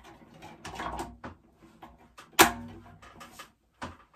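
Clicks and knocks of plastic modules being handled and fitted into a consumer unit, with one loud sharp click a little over halfway through, typical of a blank module snapping onto the DIN rail.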